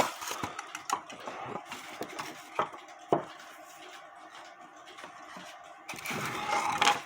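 Small clicks and taps of hand-work on a cuckoo clock bellows, then about a second of scraping near the end as a blade cuts through the Tyvek bellows covering against a board underneath.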